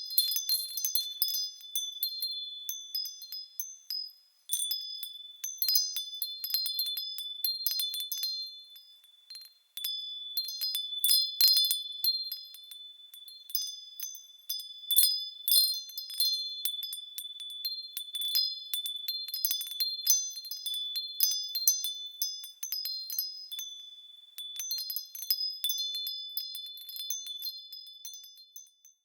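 Wind chimes tinkling: several high, clear ringing pitches struck at irregular moments, swelling and fading, with brief lulls about four and nine and a half seconds in.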